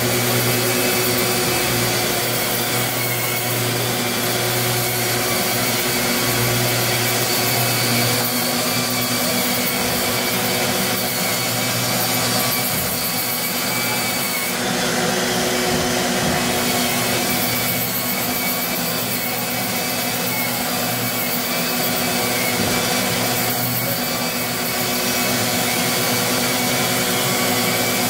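Long-reach electric drywall sander running steadily against a ceiling, together with the shop vacuum drawing dust through its hose: a constant motor whine over a steady rushing hiss.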